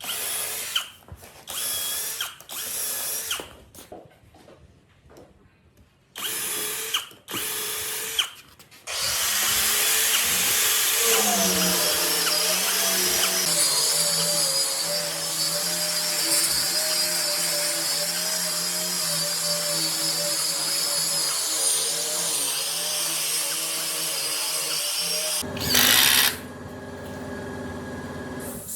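Electric power tool motor, such as a drill, triggered in several short bursts. It then runs continuously for about sixteen seconds at a steady pitch, after a small drop in pitch early in the run. Near the end it changes to a brief, louder, rougher noise and then stops.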